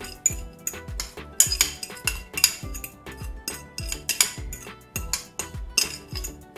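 A fork scraping and tapping against a plate, knocking fried onions off into a stainless-steel mixing bowl, in a run of quick clinks. Background music with a steady beat plays underneath.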